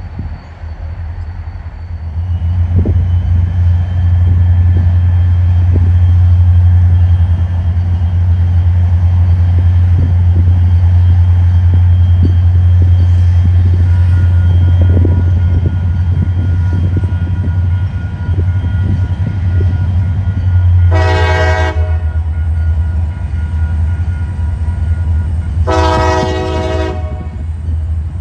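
Wheeling & Lake Erie train's diesel locomotive running loud and steady, with scattered clicks of wheels on rail. Near the end the multi-chime air horn blows twice, the second blast longer, and a third blast starts at the very end.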